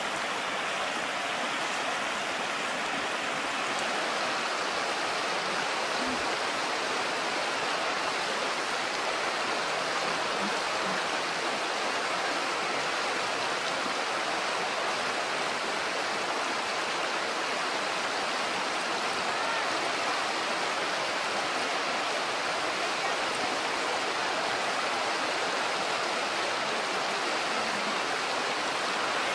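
Shallow river running over stones and cobbles: a steady, even rushing of water.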